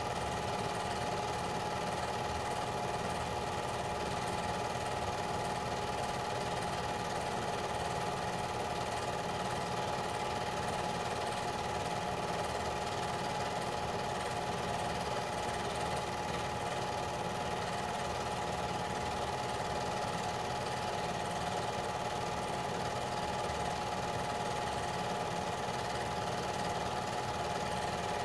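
Film projector running: a steady, fast mechanical whirr from its motor and film-advance mechanism, unchanging throughout.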